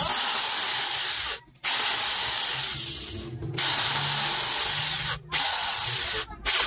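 Corded electric hand drill running as it bores through a wooden machete handle scale, stopping briefly four times as the trigger is let off and squeezed again.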